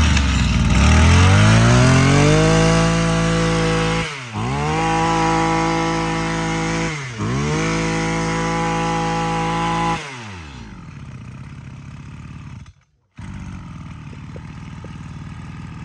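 Maruyama 24cc two-stroke brush cutter engine running. It revs up to high speed over the first couple of seconds and is eased off and back on twice. About ten seconds in it drops to a steady idle.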